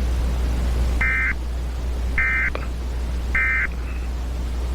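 Emergency Alert System end-of-message tones: three short bursts of digital data warble about a second apart, marking the end of the alert, over a steady low hum.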